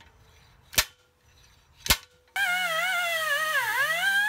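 Two sharp metal clanks about a second apart: a slide-hammer bearing puller being struck to pull a damaged bearing race out of the axle. A little over halfway through, music with a gliding melody starts and carries on.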